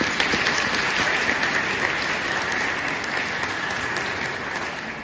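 Audience applauding: many people clapping together, easing off slightly near the end.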